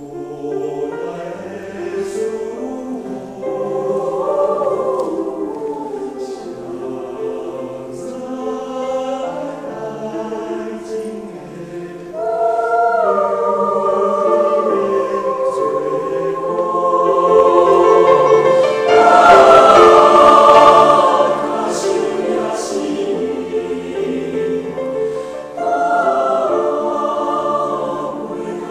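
A mixed choir of men's and women's voices singing a slow Taiwanese-language song in parts, with piano accompaniment, swelling to a loud climax about two-thirds of the way through before easing back.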